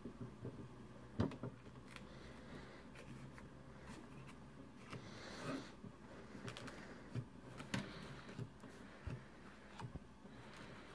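Faint handling of cables and connectors at a TV's rear antenna terminals: scattered small clicks and scrapes, the sharpest about a second in and another near the eight-second mark.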